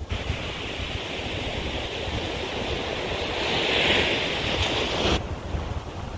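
Ocean surf washing on the beach: a steady hiss that swells about four seconds in and cuts off abruptly about a second before the end, over a low rumble of wind on the microphone.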